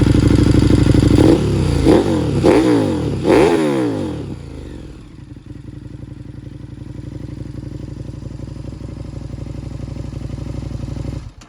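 2020 KTM Super Duke R's 1301 cc V-twin engine running at a fast idle, then blipped four times in quick succession, rising and falling in pitch each time, before settling to a quieter steady idle. It cuts off abruptly near the end. The bike now starts and runs after its faulty Race On switch and ignition were replaced.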